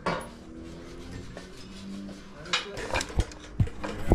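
Metal clinking and knocking from hand work on an engine block hanging from a hoist: one clink at the start, then several sharp clinks and knocks in the last second and a half.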